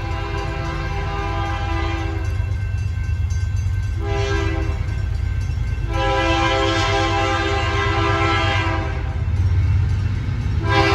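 Nathan K3LA/K3HA three-chime locomotive air horn sounding in separate blasts: one ending about two seconds in, a short blast about four seconds in, a long blast of about three seconds, and another starting near the end. The low rumble of the moving train runs underneath.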